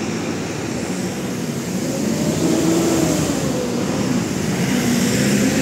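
Vehicle noise in a city: a steady rumble and hiss that grows louder over the first two or three seconds and then holds, with a faint wavering hum underneath.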